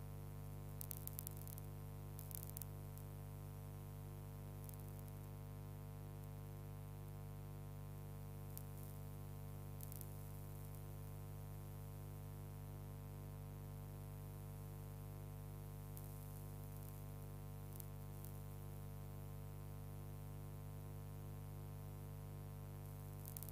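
Steady electrical hum with many overtones, unchanging throughout, with a few faint clicks of crackle. No sound of the steam train itself is heard.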